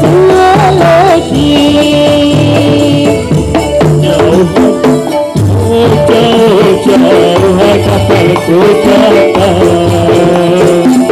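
Ndolalak dance music from Central Java, played loud through a PA: drumming in a steady rhythm under a held, wavering melody line.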